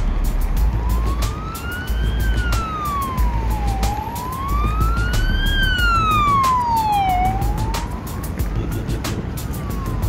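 Background music with a pulsing bass and a rapid beat of clicks, over which a siren-like wail slides slowly up and down, rising and falling about every three and a half seconds and loudest in the middle.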